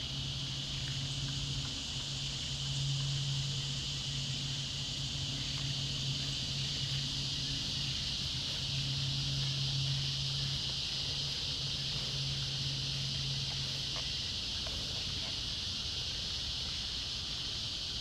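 Steady chorus of insects, crickets or cicadas, shrilling without a break, with a low steady hum underneath that stops about fourteen seconds in and a few faint knocks near the end.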